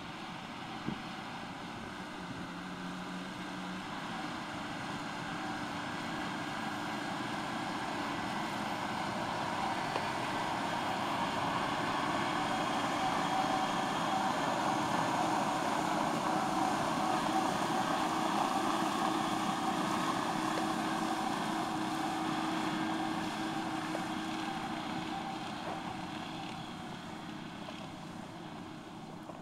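Fendt tractor and Strautmann VS 2403 muck spreader working as the rig passes: engine noise mixed with the steady hum of the spreader's spinning beaters throwing out solid manure. It grows louder, is loudest around the middle, and fades near the end as it moves away.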